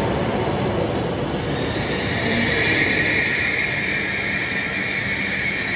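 Shinkansen train running along an underground station platform: a steady rumble with a high-pitched squeal that swells about two seconds in and holds on.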